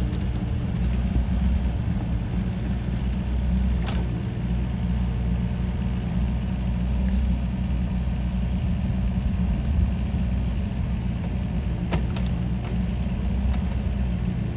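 Kobelco SK50 mini excavator's diesel engine running steadily, with a couple of sharp knocks, one about four seconds in and one near the end.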